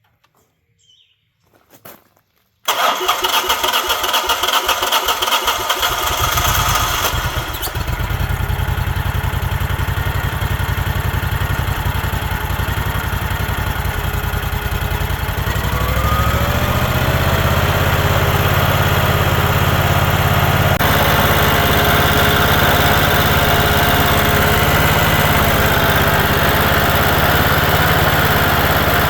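The 32 hp V-twin OHV engine of a Generac-built 15 kW standby generator cranking on its electric starter with the choke pulled, catching after about three seconds and running. Its speed rises about halfway through, then it settles into a steady run.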